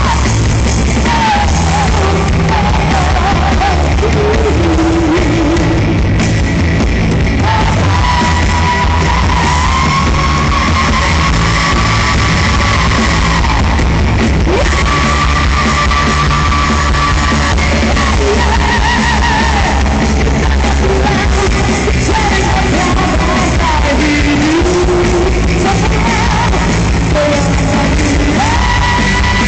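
Live rock band playing a song with a vocalist singing the melody over drums, bass and guitars, loud and steady throughout.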